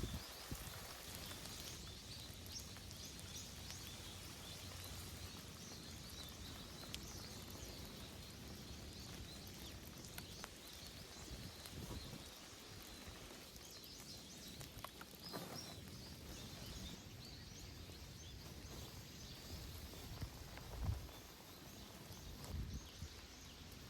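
Steady rain and wind, with faint scattered taps and a couple of short thumps near the end.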